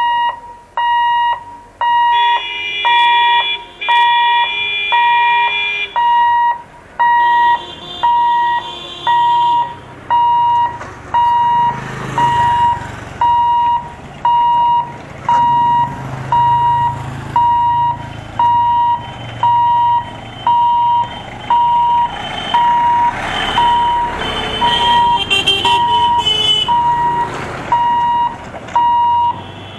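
Railway level-crossing warning alarm beeping steadily, about one beep a second. Vehicle horns sound a couple of seconds in and again near the end, and the engines of a car and motorbikes pass through the middle.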